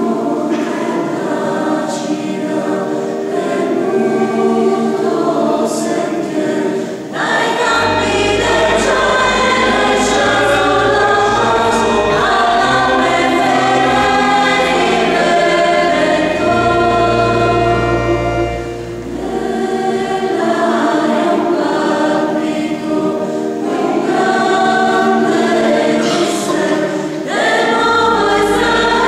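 Mixed choir of women's and men's voices singing a slow, sustained polyphonic carol in a reverberant church, with organ accompaniment. Deep bass notes come in about seven seconds in, drop out around nineteen seconds, and return near the end.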